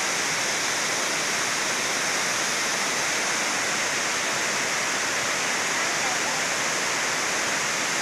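Tirathgarh Falls, a tall waterfall cascading over stepped rock into its pool, giving a steady, unbroken rush of falling water.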